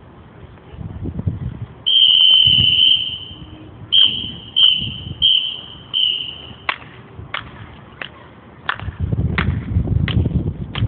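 Drum major's whistle blown as a count-off: one long blast, then four short blasts at the same high pitch. Sharp ticks follow at a steady beat, about one every 0.7 seconds.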